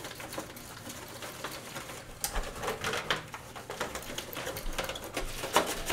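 Cloth towel rubbing in quick, repeated strokes over a hard plastic RC car body, buffing off a spray-on gloss coating; the strokes grow more distinct from about two seconds in.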